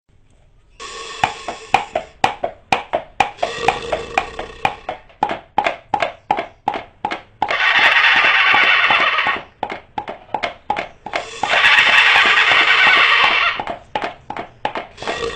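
Horse sound effect: a steady clip-clop of hoofbeats, about three knocks a second, broken twice by a long hissing noise, with another starting near the end.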